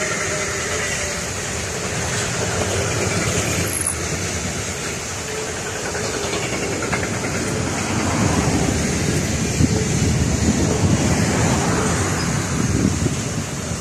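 Container and tank wagons of a long freight train rolling past, a steady rumble of steel wheels on rail that grows louder and more rattling about eight seconds in.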